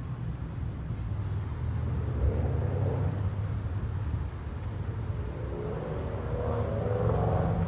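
Steady low hum like a running motor or vehicle rumble, with faint wavering tones rising over it near the end.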